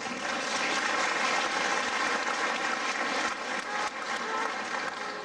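Audience applauding, a dense steady clapping that eases a little near the end.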